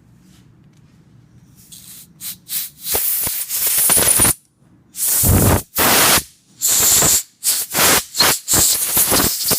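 Compressed-air blow gun blasting through a small-engine carburetor's jet port and passages to clear them. It goes in a string of loud hissing bursts, some short puffs and some a second or so long, starting about two seconds in.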